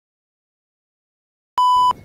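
Complete silence, then about one and a half seconds in a short, loud electronic beep: a single steady high tone lasting about a third of a second.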